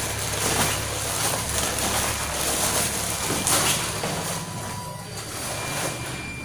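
Rushing noise on a handheld camera's microphone, like wind or handling noise, with a few soft knocks while walking. It fades a little in the last couple of seconds.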